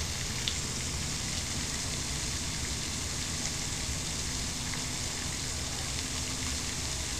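Steady outdoor background noise: an even hiss with a low rumble underneath, holding at one level, with no calls or distinct events.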